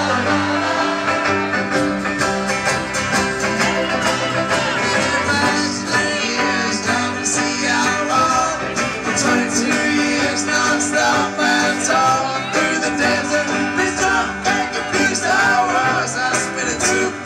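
Live acoustic band playing a country-bluegrass song: strummed guitar and plucked banjo under a steady beat, with singing.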